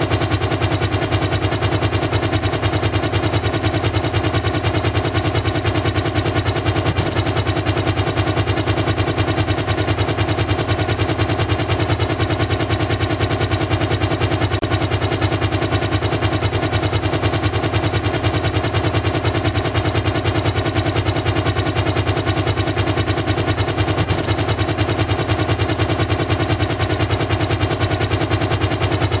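Apache attack helicopter rotor blades chopping in a rapid, steady beat over the drone of its turbine engines, unchanging in level throughout.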